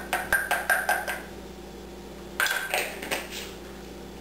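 Light clinking taps of a spice shaker being knocked against a small measuring cup and glass bowl to shake out garlic powder. A quick run of taps with a short ring comes in the first second, and another run comes from about two and a half seconds in.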